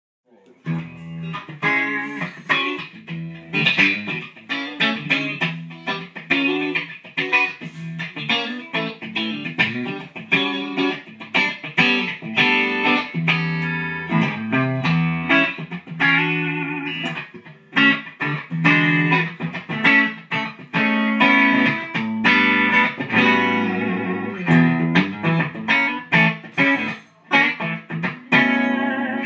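Fender Stratocaster electric guitar played through an amplifier: a continuous blues-rock passage of picked notes, starting about half a second in.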